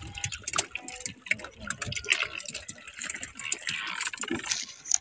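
Sea water lapping and splashing against the hull of a small outrigger boat, with scattered drips and small splashes.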